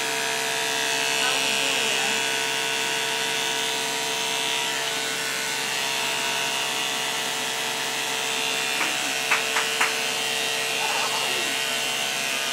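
Electric hair clippers running with a steady buzz. Three short sharp clicks come about nine to ten seconds in.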